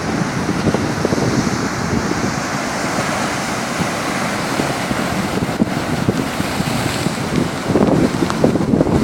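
Strong wind buffeting the microphone over the rush of rough sea surf, with heavier gusts near the end.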